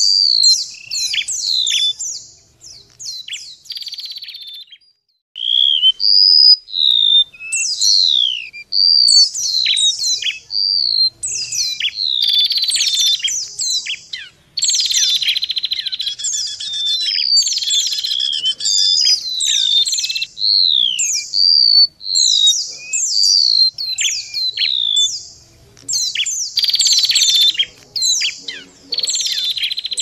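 Layered bird-lure recording of small songbirds, remetuk laut (golden-bellied gerygone), pleci (white-eye) and red-headed prenjak, singing over one another: quick runs of high, falling whistled notes and sharp chirps. It thins out briefly a couple of seconds in, then stays dense.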